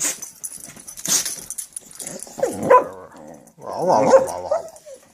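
Golden retriever vocalizing excitedly: two short noisy bursts near the start, then two drawn-out whining barks that bend up and down in pitch in the second half.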